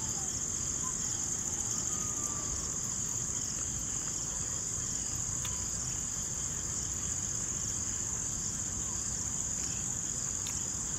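Steady high-pitched insect chorus, typical of crickets in grass at dusk, droning without a break over a low background rumble.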